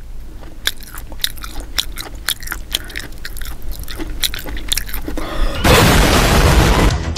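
Crunchy snack bitten and chewed close to the microphone: a quick run of sharp crunches. Near the end they give way to about a second of loud rushing noise.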